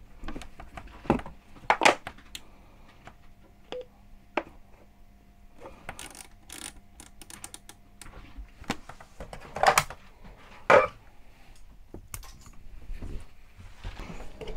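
Clicks and knocks of hands working at a Simrad marine VHF radio, buttons pressed and gear handled, with a few louder knocks near the middle and end. A faint steady hum runs under the clicks for several seconds in the first half.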